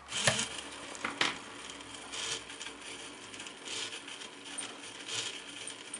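A couple of sharp clicks from a switch being pressed, then the small geared DC motors of a toy robot arm whirring and grinding as the H-bridge drives the arm toward its set point under PID control. The motor noise swells about every second and a half.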